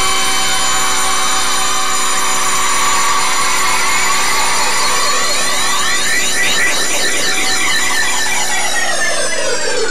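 Electronic background music: a held synthesizer chord with sweeping overtones, its whole pitch sliding steadily downward near the end.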